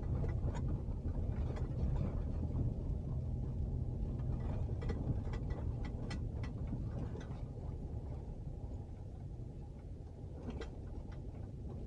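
Pickup truck driving on a rough dirt road, heard from inside the cab: a steady low engine and road rumble with frequent sharp clicks and rattles, gradually getting quieter.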